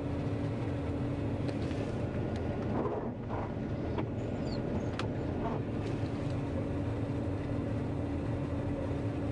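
John Deere 9500 combine running steadily while harvesting corn: an even mechanical drone with a constant hum underneath.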